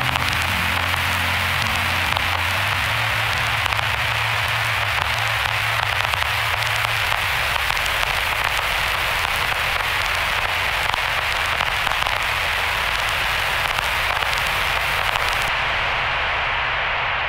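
Dense static hiss and crackle like worn record surface noise, the end of a heavily degraded ambient track. A low droning tone underneath fades out about seven seconds in, and near the end the treble is cut away so the noise turns muffled.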